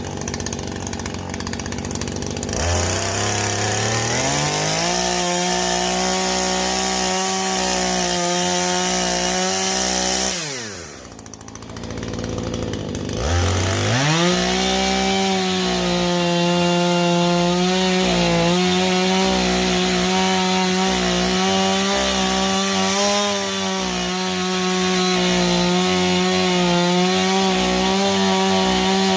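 Husqvarna two-stroke chainsaw engine revved up about two and a half seconds in and held high and steady for several seconds. It drops away around the middle, then is revved up again and held high through the end.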